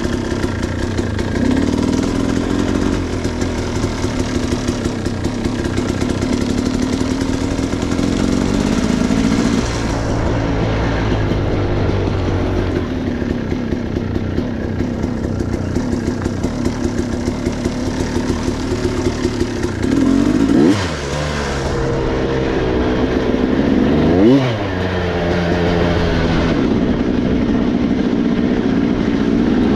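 Motorcycle engine running steadily under way, with two quick revs that rise and fall about twenty and twenty-four seconds in.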